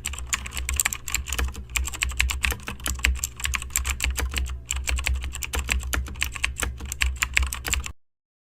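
Rapid, irregular clicking and crackling over a steady low hum. It cuts off suddenly near the end.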